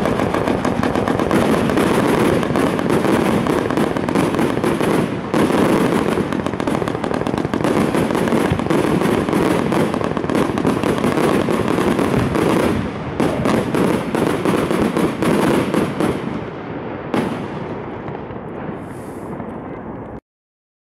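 A 100-shot 30 mm fireworks cake firing in a rapid, unbroken barrage of launches and shell bursts. The barrage thins and fades about sixteen seconds in, and cuts off suddenly about twenty seconds in.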